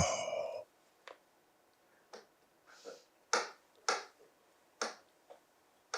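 A man's mouth clicks during a pause in his talk: about seven short, soft clicks at uneven spacing, with a faint breath about three seconds in.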